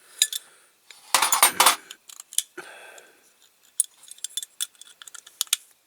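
Small diecast metal parts clinking and rattling as they are handled and pulled apart: a loud scraping rattle a little over a second in, then a run of sharp clicks near the end.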